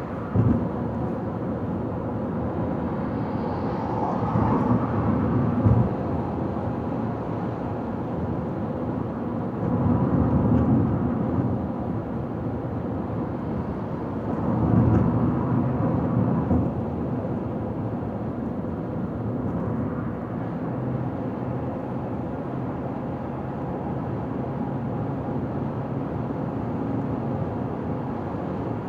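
Car driving on a highway: steady road and engine noise, with three louder swells about 4, 10 and 15 seconds in and a short knock about half a second in.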